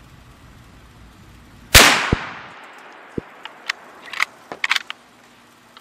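A single shot from a Ruger American Ranch bolt-action rifle in .350 Legend, its report dying away over about a second. It is followed by a run of short metallic clicks as the bolt is worked to eject the spent case and chamber the next round.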